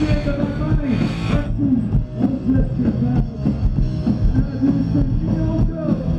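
Punk rock band playing live through the PA: drums and distorted electric guitar, with a man's voice singing into the microphone.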